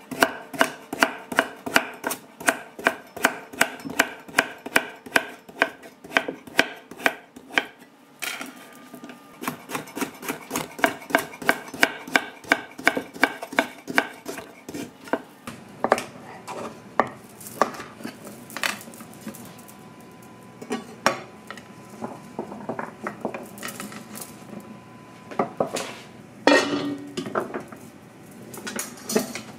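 Chef's knife chopping hard pumpkin on a wooden butcher-block board, a steady rhythm of knocks about two and a half a second for roughly the first half. Then sparser knocks and scraping as the cut pieces are gathered by hand, with a few louder knocks near the end.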